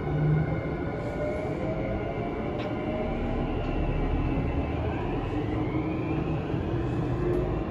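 Tokyu 5000 series electric train running, heard from inside the passenger car: the inverter-driven traction motors whine in several tones that climb in pitch as the train gathers speed, over a steady rumble of wheels on rail.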